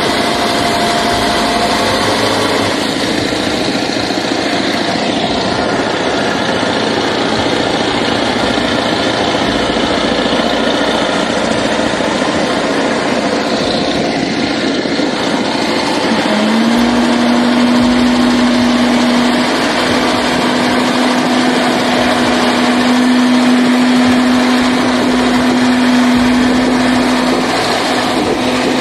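Heavy truck diesel engines running steadily as a Ural 6x6 stuck axle-deep in mud is pulled by a KAMAZ on a tow cable. About sixteen seconds in, a steady whine rises in briefly and then holds until the end.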